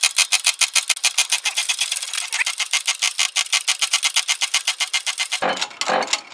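Rapid, very even mechanical clicking, about nine clicks a second. About five seconds in it stops and gives way to irregular knocks and scraping of metal parts.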